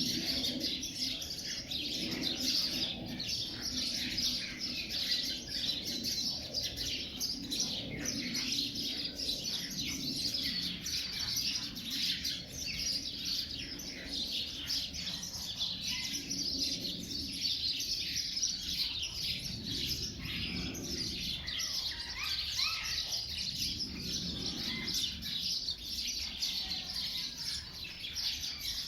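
Birds chirping continuously, a dense chorus of many short calls.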